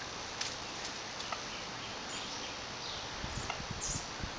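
Outdoor back-yard ambience: a steady background hiss with faint, short high chirps of small birds scattered through it, and a few low thumps near the end.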